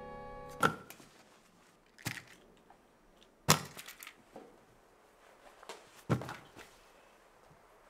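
Camping gear set down piece by piece on a bed: four sharp knocks, each with a short rattle of smaller clicks, spread over about five seconds. Orchestral string music cuts off at the first knock.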